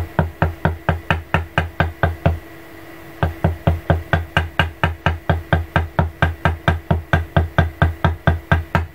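Wooden mallet tapping a leather-tooling stamp into leather in quick, even knocks, about five a second, with a short break about two and a half seconds in.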